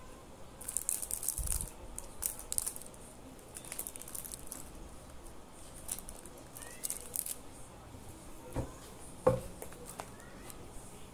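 Crinkling and rustling of craft materials being handled, in several short clusters, followed by two soft knocks about eight and a half and nine seconds in, the second the loudest.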